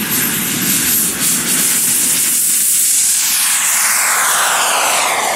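Radio-controlled model jet's turbine at full power on its takeoff run: a loud rushing hiss that swells at the start, then sweeps down in pitch as the plane passes and climbs away.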